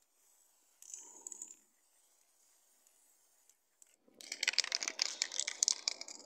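Cardboard stencil sheets being shifted and rubbed against each other, a rough crackling rustle for the last two seconds or so. About a second in, a short hiss from an aerosol spray-paint can.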